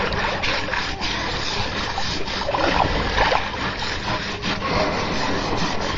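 River water splashing and sloshing around a baby elephant as it is washed.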